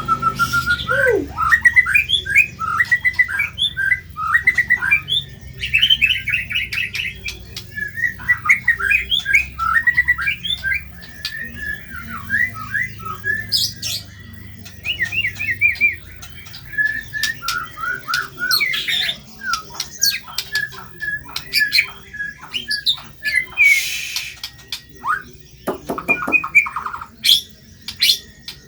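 White-rumped shama (murai batu) singing without pause: a long, varied run of quick whistled phrases and trills, broken a few times by harsh, scratchy bursts of coarse material.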